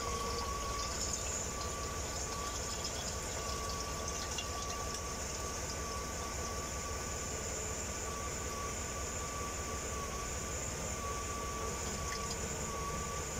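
Automatic transmission fluid streaming steadily out of a cooler line into a plastic container, pumped out by the transmission with the engine running during a fluid flush. A thin steady whine runs under the sound of the pouring fluid.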